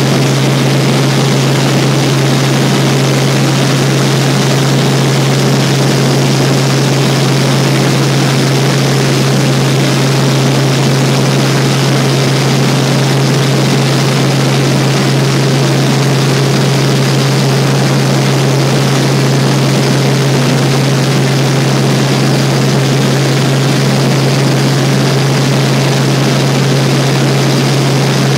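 Helicopter in flight: a steady, loud drone of engine and rotor, with a strong low hum over a constant wash of noise that does not change.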